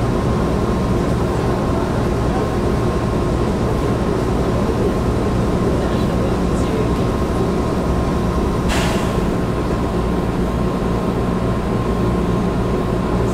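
Steady hum of a stationary JR Kyushu 415 series electric train's onboard equipment, heard from inside the car, with a thin steady whine. About nine seconds in there is one short hiss of released air.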